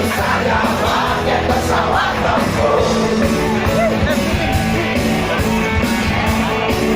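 Live rock band playing a song steadily, with singing voices.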